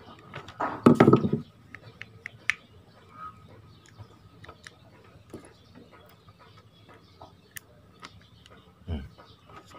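Small metal clicks and taps as the rotor and bail arm of a Fugu Tora 4000 spinning reel are handled and fitted back together. A short louder burst comes about a second in, and a dull thump just before the end.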